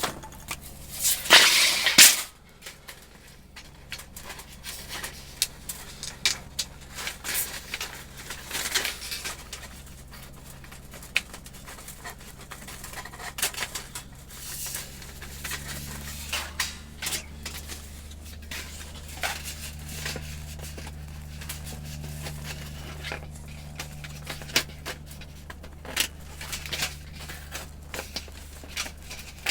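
Thin titanium stove plates being handled and slotted together, giving scattered light clicks and clinks, with a louder rustling scrape about a second in. A steady low hum runs underneath.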